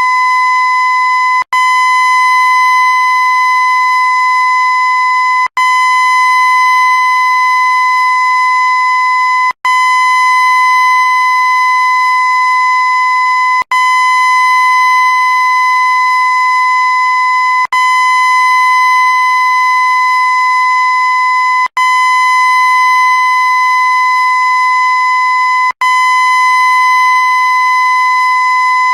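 A loud, steady, high-pitched tone that never changes pitch, played as a loop. It breaks off for an instant about every four seconds, seven times here, and restarts at once.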